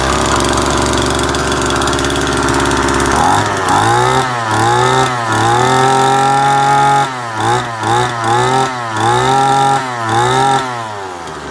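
Makita 221 brush cutter engine starting and idling for about three seconds. It is then revved up and down repeatedly, with a longer hold at high revs followed by a series of short blips, before dropping back to idle near the end. It is being test-run to show that it works.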